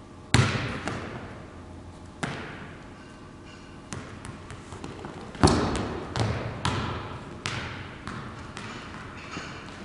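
Basketball bouncing on a hardwood gym floor: about ten bounces at uneven intervals, each with an echoing tail. The loudest comes about halfway through.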